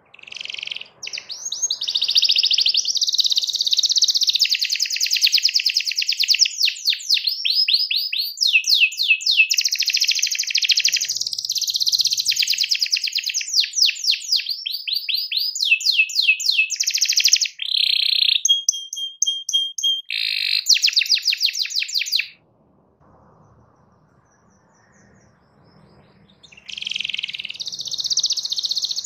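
Domestic canary singing a long, fast song of rapid trills and quick falling notes, with a short held whistle about three-quarters of the way through. It breaks off for about four seconds and starts singing again near the end.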